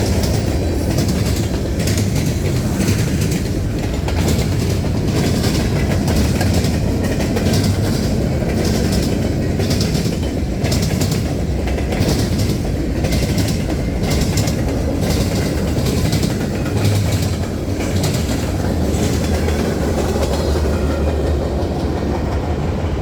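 Cars of a CSX freight train hauling trash rolling past, with a steady low rumble and wheels clacking over rail joints in uneven runs of clicks.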